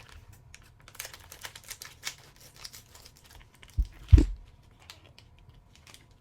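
Plastic parts baggies crinkling and small parts clicking as they are handled and unpacked on a bench, with two dull thumps close together about four seconds in.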